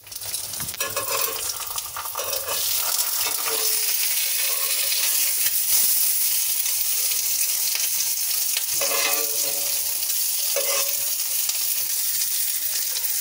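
An egg sizzling steadily as it fries in oil in a cast-iron skillet. A metal spatula scrapes and clinks against the pan a few times as it breaks the egg up.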